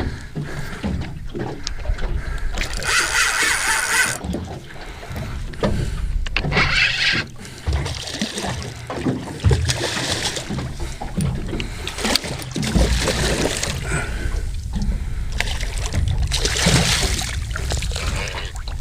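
Wind rumbling on the microphone and water around a small boat, with several short bursts of hiss a few seconds apart.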